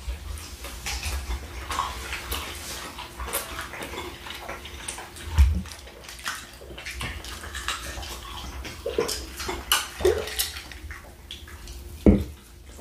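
Close-miked chewing and mouth noises of people eating shrimp and fish: an irregular run of small clicks, with a low thump about five seconds in and another near the end.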